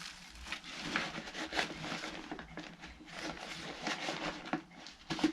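Rustling and irregular small clicks and knocks of hands working a vacuum cleaner dust bag and its band onto the fitting.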